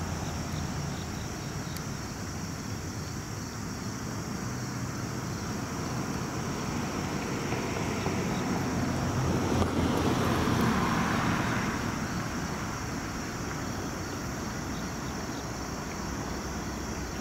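Diesel-electric freight locomotive approaching from a distance, a low steady rumble that swells about ten seconds in and then eases, with wind on the microphone.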